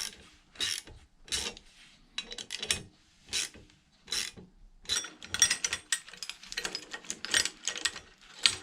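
Gear puller being wound in with a hand tool to pull a part off a motorcycle magneto: a series of sharp metallic clicks, about one every 0.7 s, becoming quicker and denser from about five seconds in.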